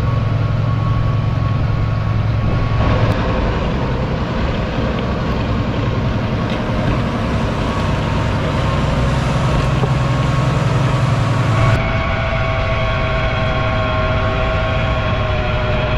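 Fendt 1050 Vario tractor's six-cylinder diesel running steadily under load while it drives a Kuhn rotary tiller through the soil. Near the end the sound changes abruptly and a steady higher whine comes in.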